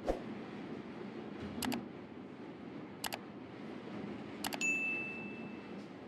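Three sharp double clicks about a second and a half apart, the last pair followed by a short ringing tone, over a steady low room noise.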